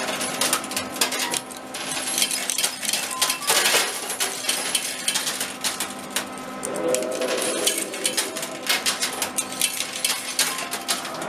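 Metal tokens dropping into a coin pusher machine and clinking against the coins on its playfield, a dense, irregular run of sharp clinks over a steady hum.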